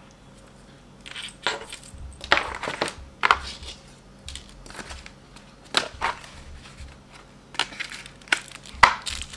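White plastic packaging inserts and small boxes being handled and squeezed on a desk, with irregular clicks, taps and rustles.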